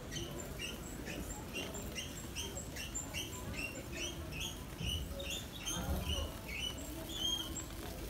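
Shopping cart wheel squeaking in a steady rhythm as the cart is pushed along, about two short high chirps a second. A couple of dull thumps come near the middle.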